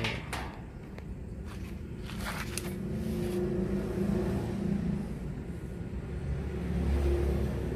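A motor vehicle's engine rumbling, getting louder toward the end. A few light clicks from the tripod being handled come in the first three seconds.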